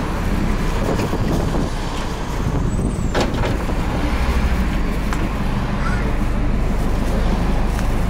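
City bus engine running, heard from inside the moving bus, with the cabin's clicks and rattles; the low engine rumble grows louder from about halfway. A brief high squeal sounds about three seconds in.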